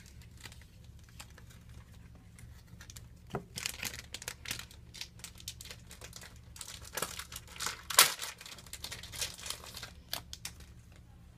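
Plastic shrink-wrap crinkling and tearing in irregular bursts as a sealed trading-card hobby box is unwrapped, with one sharp, loud snap about eight seconds in.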